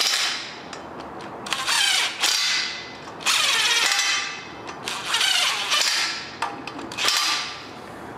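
DeWalt cordless impact wrench with a 15 mm socket run in about five short bursts, each about a second long and dying away as the trigger is let go. It is gently snugging down the flexplate-to-crankshaft bolts before they are torqued.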